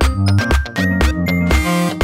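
Background electronic music with a steady drum beat.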